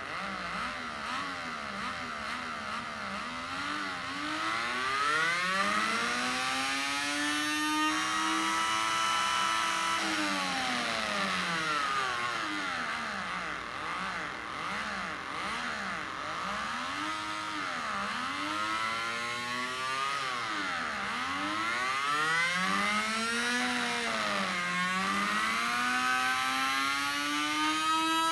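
Small electric motor spinning with a pencil tip pressed against its ribbed metal drum, giving a buzzing tone that rises and falls in pitch like a motorcycle engine revving. It makes one long climb, drops, then several short rev-like sweeps and a last climb near the end.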